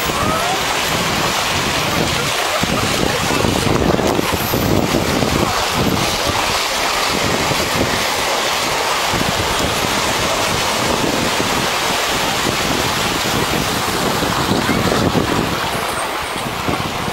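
Surf washing steadily onto a beach, with wind gusting on the microphone.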